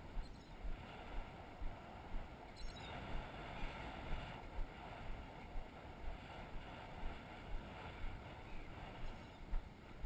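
Wind buffeting the microphone, with footsteps on wet sand about twice a second.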